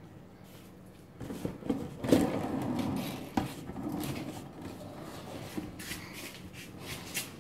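Handling noises: a few knocks and clicks as the helmet is turned and shifted on its turntable stand, the loudest a little after two seconds, then lighter scattered ticks.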